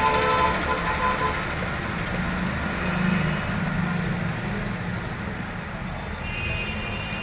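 Steady background road-traffic noise of passing motor vehicles, with a low engine hum that swells about three seconds in and a brief high-pitched tone near the end.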